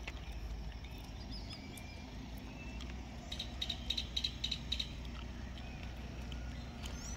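Rural outdoor ambience: a steady low rumble with scattered high chirping calls, and a quick even run of chirps about halfway through.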